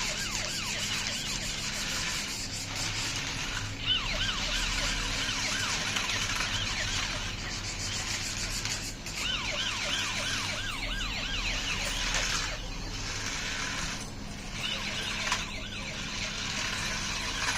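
Toy police car's electronic siren warbling in quick, repeated rising-and-falling yelps over a steady hiss, dropping out briefly a few times.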